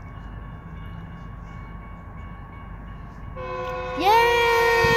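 Metrolink commuter train's multi-tone air horn sounding for the grade crossing. It starts about three and a half seconds in with a short rise in pitch, then holds a loud, steady chord.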